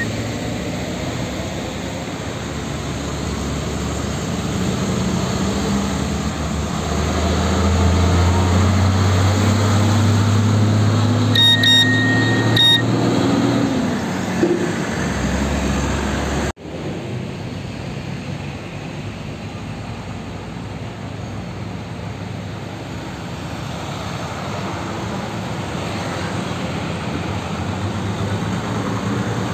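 Heavy diesel truck engine pulling away under load, its pitch climbing steadily for about a dozen seconds, with a few short high beeps near the middle. After an abrupt cut, steady road traffic noise with trucks rolling past.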